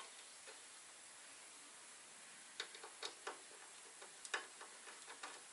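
Faint, sharp clicks and taps of hand work as a bolt is fitted at the fuel pump mounting. There are a few isolated clicks, about two and a half to four and a half seconds in, and quiet room tone before them.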